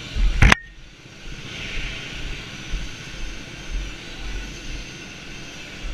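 Muffled go-kart noise picked up by a helmet-mounted GoPro: a steady noisy rumble with low buffeting. A loud knock comes about half a second in.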